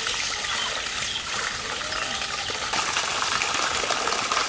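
A steady stream of water gushing and splashing over raw whole broiler chickens as they are rinsed and rubbed by hand in a metal platter.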